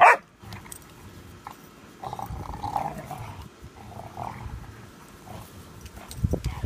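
Two Pudelpointers growling at each other in a squabble over a bone: low growling throughout, louder and higher-pitched about two seconds in and again around four seconds. A short sharp sound comes right at the start, and a few low thumps near the end.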